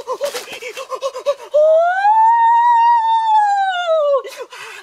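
A man's high-pitched wavering whimpering cry, then one long wailing howl that rises and falls over nearly three seconds before breaking back into quick whimpers.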